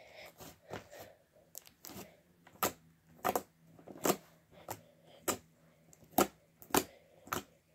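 Butter slime clicking and popping as it is kneaded and pressed by hand: a string of short, sharp clicks, faint at first and louder from about two and a half seconds in, coming roughly one or two a second.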